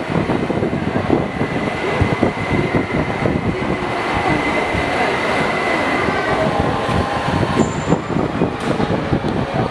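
Overhead crane in a large workshop hall running while it holds a suspended Shinkansen car body: a steady mechanical rumble with a thin high whine that stops about six and a half seconds in.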